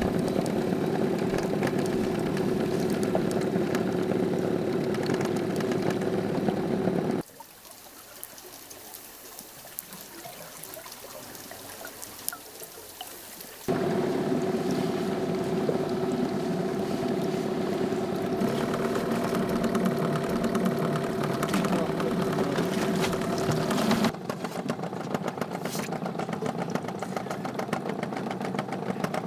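Small fishing boat's engine running steadily at an even low pitch, cut by a quieter stretch of several seconds with only faint water sounds. Near the end the drone gives way to a patter of fine clicks and drips.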